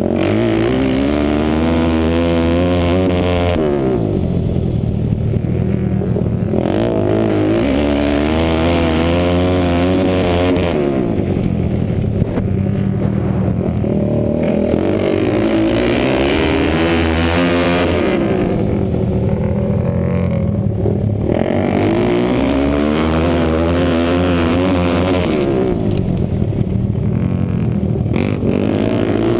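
Motorcycle engine heard from the rider's helmet while lapping a dirt flat track: the revs climb on each straight and drop off going into each turn, about four times over.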